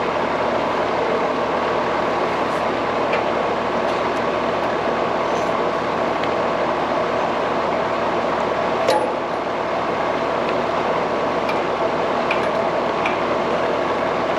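Steady mechanical whooshing noise with faint steady tones, with scattered light clicks and one sharper clink about nine seconds in, as parts are handled on the unit.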